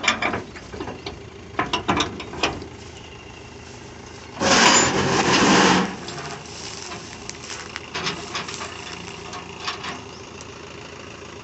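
Metal clanks and rattles from a lever being worked on a straw reaper, then a loud rushing noise lasting a bit over a second about four and a half seconds in. After it, the Mahindra 595 Turbo tractor's diesel engine idles low and steady.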